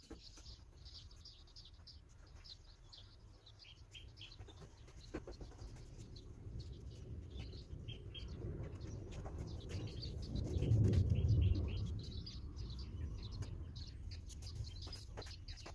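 Small birds chirping in short repeated calls, over a low rumble that swells about ten seconds in and fades a couple of seconds later.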